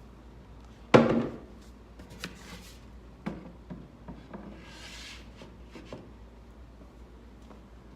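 Plywood shelves being handled and fitted into a wooden desk frame: a sharp wooden knock about a second in, a few lighter knocks, then a scraping slide of wood on wood.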